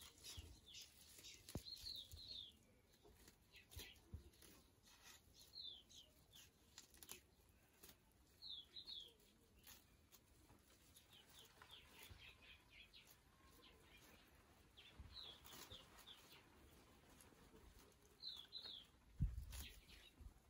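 Faint chirps of small birds, short quick downward notes in twos and threes repeating every few seconds, over a near-silent background with light scratchy rustling of a jute sack being pulled apart. A low thump near the end.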